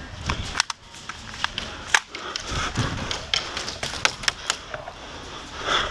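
Scattered sharp clicks and knocks at irregular intervals, the sounds of airsoft play around plywood barricades.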